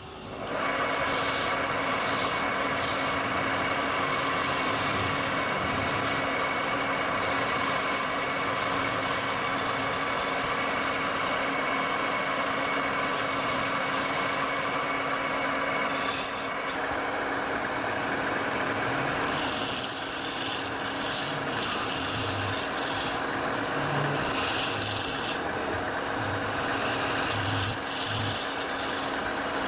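Wood lathe running with a turning tool cutting into a long spinning piece of wood: a steady scraping rasp over the motor's hum. It starts abruptly about half a second in, and the cutting grows sharper and more uneven in the second half.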